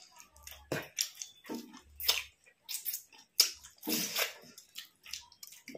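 Eating sounds: chewing and wet squishing of rice and curry, coming as irregular short bursts.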